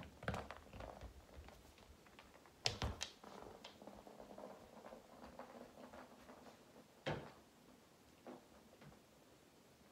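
A dog moving about on carpet: faint footfalls and a few sharp knocks and rattles, the loudest about three seconds in and another about seven seconds in.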